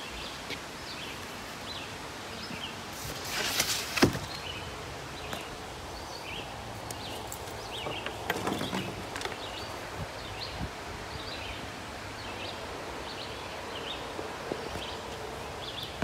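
Outdoor ambience with many faint, short high chirps scattered throughout. About three seconds in there is a brief rustle that ends in a sharp knock, and a softer rustle comes near the middle.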